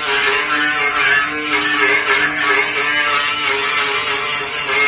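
Power sander running steadily against the Volkswagen Beetle's steel body panel, a constant motor whine over a dense abrasive hiss as paint and rust are taken down to bare metal.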